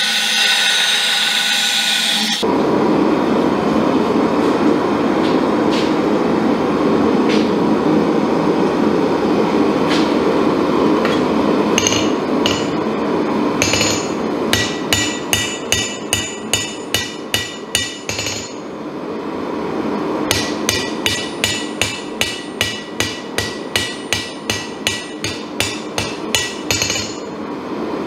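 A hand hammer forging a red-hot damascus knife blade on a Kohlswa steel anvil, about two to three sharp ringing blows a second, with a break of a couple of seconds partway through. Before the hammering, a steady rushing noise runs underneath, and a different machine noise cuts off about two seconds in.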